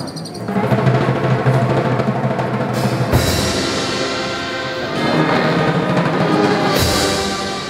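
A brass procession band playing a slow funeral march (marcha fúnebre), sustained brass chords over a drum roll and beat, with two cymbal-and-drum crashes, about three seconds in and again near the end.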